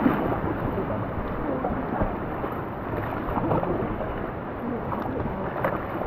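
River rapids rushing around an inflatable raft: a steady, dense rushing noise with a low rumble, mixed with wind buffeting the microphone and a few brief sharper splashes.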